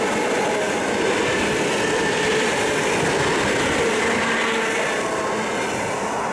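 Suburban electric multiple unit running past on the rails: a steady rush of wheel and running-gear noise with a faint whine. It eases off slightly near the end as the last car draws away.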